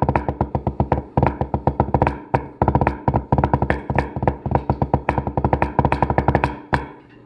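Wooden drumsticks playing a fast rudimental snare solo on a drum practice pad: rapid strokes with louder accents and a couple of short breaks, stopping just before the end.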